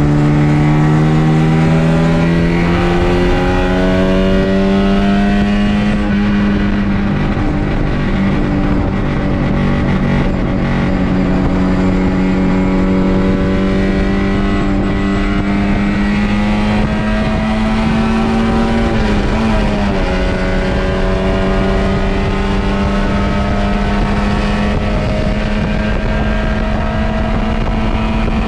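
MGB race car's engine heard from on board, pulling hard under acceleration: its pitch climbs over the first few seconds, then holds high and creeps upward, with a brief dip in pitch about two-thirds of the way through before it climbs again.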